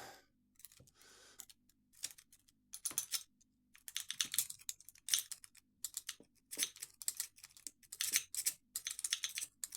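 Lock pick rake scrubbed in and out of a padlock's keyway under tension, a rapid rattle of clicks from the pins. The clicks come in scattered bursts at first and run on thick and fast from about four seconds in.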